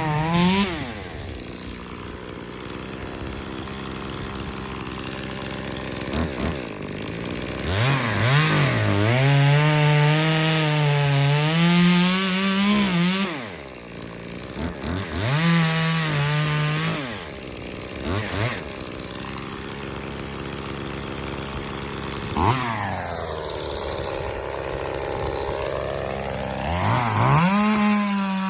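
Echo CS-2511T small two-stroke top-handle chainsaw revving up and cutting wood in several bursts, its engine note sagging under load in the cut and climbing again when it frees, then dropping back to a low idle between cuts.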